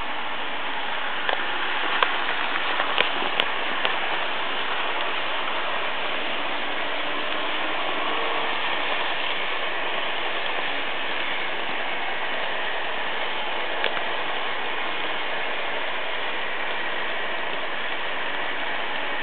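Märklin H0 model trains running on the layout's track: a steady whirring rattle of wheels and motors, with a few sharp clicks between about one and four seconds in.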